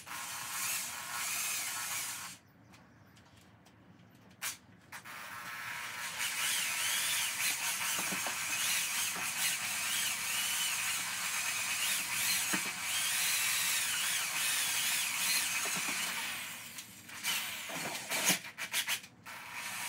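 Electric drill spinning a spiral mixing paddle through a bucket of thick resin and chopped-strand transom compound, its motor whine wavering under the load. A short run comes first, then a pause, then a long steady run of about twelve seconds that breaks into short bursts near the end.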